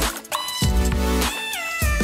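Background music with a low beat and a lead whose notes slide in pitch, bending up and then down.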